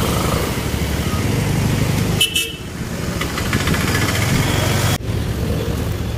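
Two-wheeler engine running steadily under way in town traffic, with a short vehicle horn toot about two seconds in.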